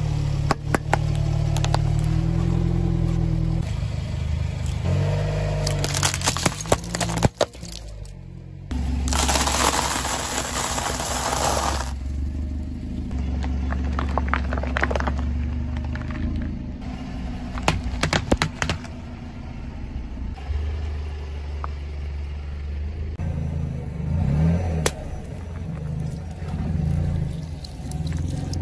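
A car rolling slowly on asphalt with its engine running, its tyre crushing a series of small objects such as mesh stress balls, paper cups and water beads. The crushing gives clusters of sharp cracks and crunches and a longer hissing squash in the middle, over the steady low hum of the car.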